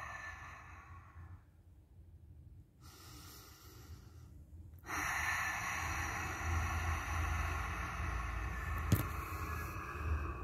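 A person's breath blown out close to the microphone: a breath fading away in the first second or so, then, after a quieter stretch, a long steady exhale that starts suddenly about five seconds in. A single click near the end.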